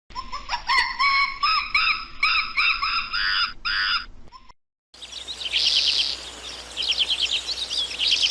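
A run of short, arching, pitched animal calls that stops about four and a half seconds in. After a brief silence comes a different recording of rapid high bird chirps and trills over a steady hiss.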